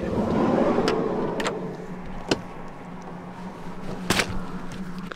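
A campervan's sliding side door is unlatched and rolls open with a rushing rumble and a few clicks, then is shut with one sharp slam about four seconds in. A steady low hum runs underneath.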